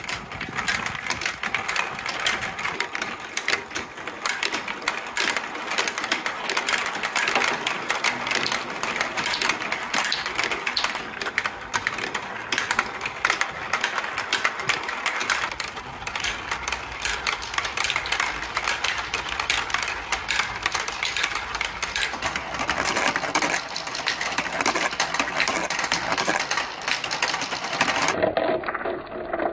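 Plastic marbles rolling and clattering through plastic marble-run tracks, tubes and a spiral tower: a dense, continuous rattle of rapid clicks.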